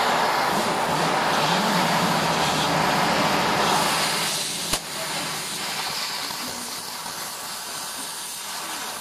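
Oxy-fuel cutting torch hissing steadily as its flame heats and cuts a steel bar. About halfway through there is one sharp click, after which the hiss goes on a little quieter.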